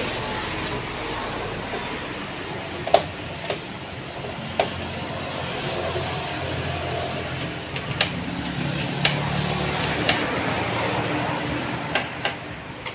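Scattered sharp clicks and taps of a screwdriver and plastic parts as screws are driven back into a Canon MG2570S printer's plastic housing, over a steady background rumble.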